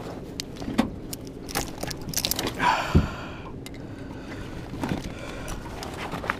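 An engine running steadily, with scattered clicks and knocks over it and a short rattle about three seconds in.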